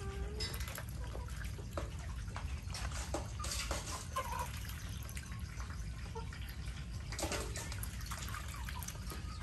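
Water dripping and trickling in a rain-soaked poultry yard, with a few short splashy bursts and brief calls from a flock of muscovy ducks and chickens, over a steady low rumble.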